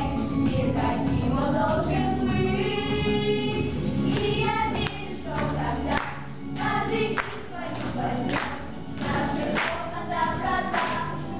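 A group of girls singing a song together over a recorded backing track. In the second half sharp beats come about once a second.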